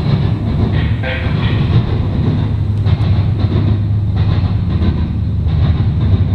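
Double-stack intermodal freight train rolling past: a steady, loud rumble of the well cars' wheels on the rails, with repeated clacks as wheels cross rail joints.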